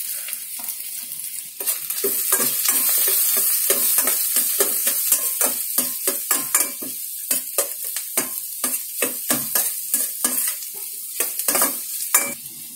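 Chopped shallots and curry leaves sizzling in hot oil in a stainless-steel kadai while being sautéed, with a spatula scraping and knocking against the pan about two or three times a second. The sizzle grows louder about a second and a half in, and the stirring stops just before the end.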